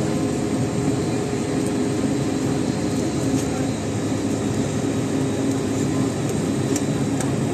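Water taxi's motorboat engine running steadily under way, a continuous even hum.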